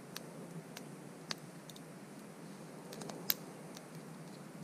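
Small wood campfire crackling: scattered sharp pops over a steady low hiss, the loudest pop a little past three seconds in.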